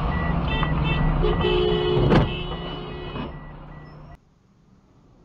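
Street traffic heard from inside a car, with a rapid high beeping that repeats over and over and a steady horn-like honk starting about a second in. A sharp knock comes about two seconds in. The sound then cuts off suddenly about four seconds in.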